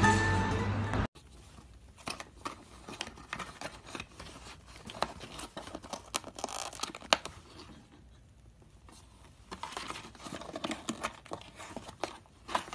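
Background music cuts off suddenly about a second in. Then a cat scrabbles and shifts inside a cardboard box: irregular scratches and crinkles of cardboard under its claws and body.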